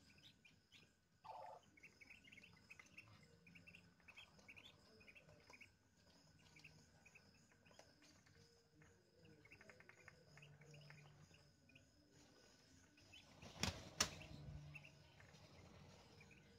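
Newly hatched Muscovy ducklings peeping faintly, short high peeps coming in quick runs. Two sharp knocks close together about three-quarters of the way in.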